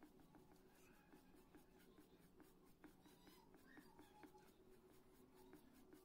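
Faint scratching of an oil pastel stick rubbed on paper in many short, quick strokes, over a low steady hum.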